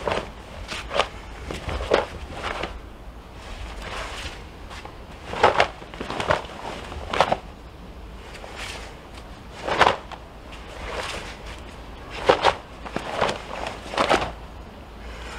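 Karate kata: the gi snapping sharply with each strike and block, irregularly spaced, often in quick pairs or threes, with bare feet moving on stone, over a low steady rumble.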